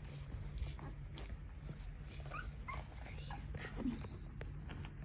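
Newborn golden retriever puppies making a few faint, short squeaks and whimpers in their sleep, with small rustling clicks.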